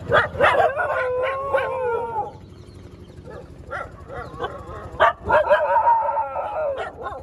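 Free-ranging street dogs barking and howling: a few short sharp barks, then a wavering, drawn-out howl lasting about a second. About five seconds in, a few more barks and another wavering howl.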